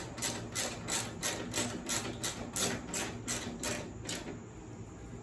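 Ratchet wrench worked back and forth in short strokes, clicking about three times a second, tightening the mower's deck belt adjustment. The clicking stops about four seconds in.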